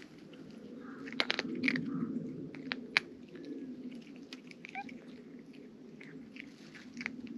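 Cat eating dry kibble, crunching and chewing. There is a run of loud crunches from about one to three seconds in, then quieter, sparser chewing.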